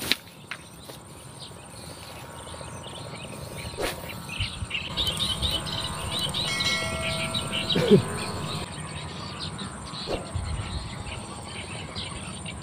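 Outdoor riverside ambience: birds chirping and insects, with a steady high insect-like whine. A few sharp clicks and a louder knock about eight seconds in.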